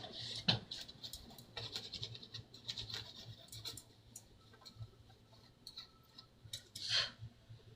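Light scratching and small scattered clicks of hands handling and cleaning dust from inside an open laptop, with one short hiss about seven seconds in.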